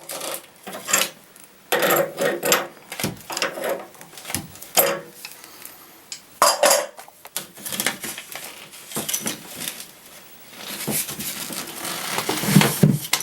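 Metal clinks, knocks and scrapes of tools on a water heater's metal relief drain pipe and fittings as the pipe is worked loose, irregular throughout, with a few strikes ringing briefly.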